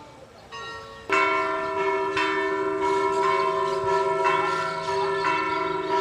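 Church bells ringing, coming in loud about a second in, with a new stroke about once a second and the tones ringing on between strokes.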